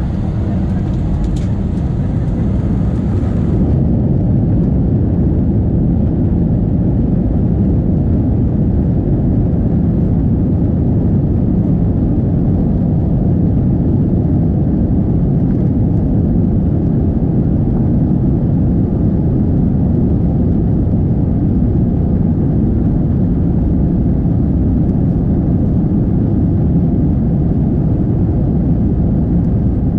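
Airbus A319 jet engines and cabin noise heard from inside the passenger cabin as the aircraft moves on the ground: a steady, loud, deep rumble that grows a little louder about three seconds in, while a fainter higher hiss stops at about the same moment.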